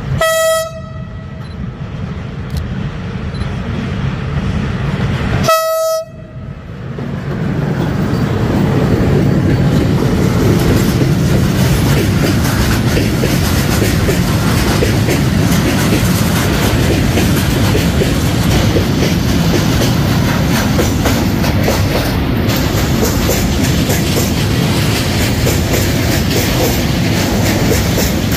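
Electric locomotive horn blowing twice, two short single-note blasts about five seconds apart as the train approaches, then a freight train of tank wagons passing close by with a loud, steady clatter of wheels on the rails.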